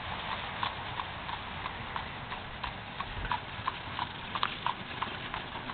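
A horse pulling a buggy clip-clopping along a paved road, its hooves striking in an even beat of about three a second.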